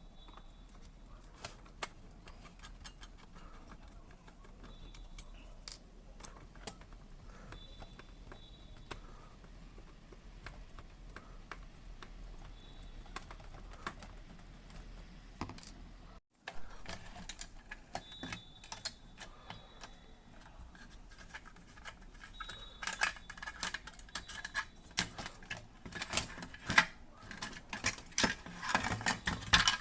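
Scattered light clicks and clatter of small hard parts and tools being handled while a Sharp 888 boombox is worked on, sparse at first and growing busier and louder in the last several seconds.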